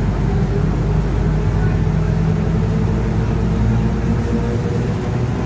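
Mercedes-Benz OF-1721 BlueTec5 city bus under way, its diesel engine running steadily with the rear differential droning.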